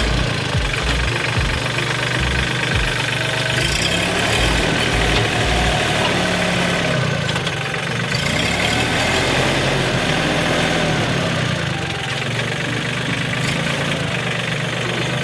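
Engine of a piece of heavy equipment running steadily, its speed drifting up and down as it works, with some low knocking pulses in the first few seconds.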